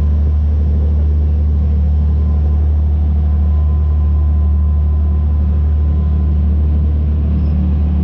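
A small motorboat's engine running steadily, heard from on board: a loud, even low drone.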